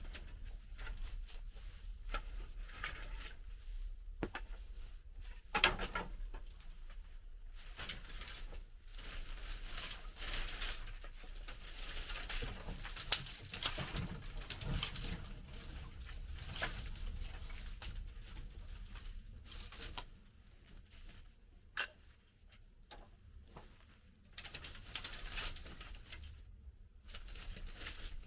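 Hay and old wooden slats being handled and shifted in a barn attic: steady rustling and scraping, with scattered knocks, the loudest about five and a half and thirteen seconds in.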